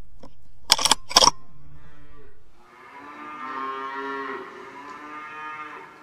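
Two sharp clicks about a second in, half a second apart, then cattle mooing: one long moo of about three seconds that fades toward the end.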